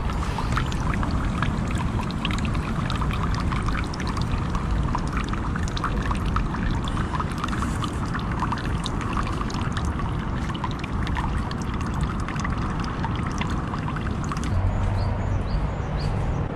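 Water pouring in a thin steady stream from a bamboo spout into a stone water basin, splashing and trickling. The splashing fades near the end.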